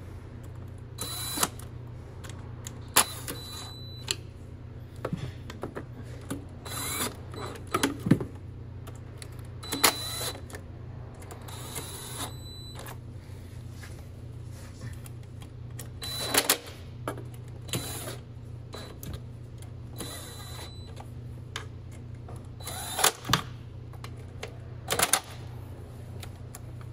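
A handheld power driver run in about a dozen short bursts, snugging valve cover bolts down one after another without fully tightening them. Light clicks of metal sound between the bursts over a steady low hum.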